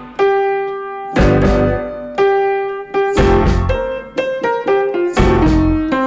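Background music led by a keyboard, with new notes and chords struck about once a second.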